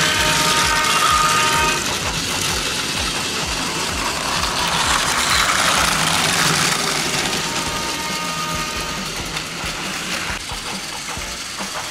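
Battery-powered Plarail toy trains running on plastic track: small electric motors whirring, with a fast run of clicks from the wheels and track.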